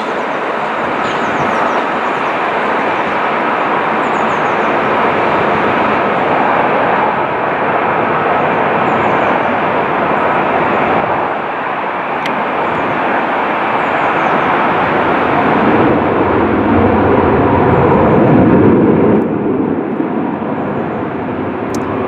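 Large jet airliner taking off, its engines at takeoff thrust: a loud, steady roar that builds to its loudest about 18 seconds in, then begins to ease.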